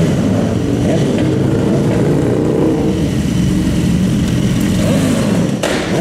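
Several sport motorcycles running together, their engines revving up and down. One bike pulls away near the end, with a short sharp burst of noise just before it.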